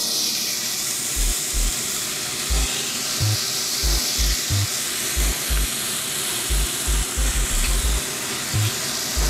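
Strips of beef bacon sizzling steadily in a hot nonstick frying pan. A low thumping beat of background music runs underneath.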